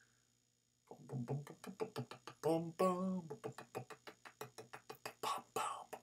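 A man's voice making quick rhythmic mouth sounds, like beatboxing, mixed with a couple of short sung syllables, starting about a second in.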